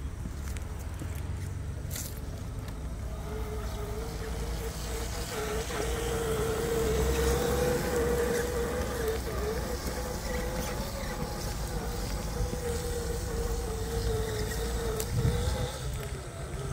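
Electric motor and gear whine of an FMS FJ40 Land Cruiser RC crawler driving through tall grass: a steady whine that wavers slightly, starting about three seconds in and fading near the end, over a steady low rumble.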